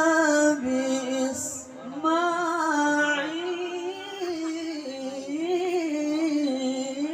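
A male qari reciting the Quran in the melodic tilawah style. He sings the word "al-kitāb" and draws it out into one long ornamented phrase whose pitch winds slowly up and down.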